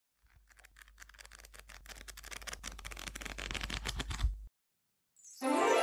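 Film projector clatter: a fast, even run of clicks over a low hum, growing louder and cutting off abruptly about four and a half seconds in. Music swells in just before the end.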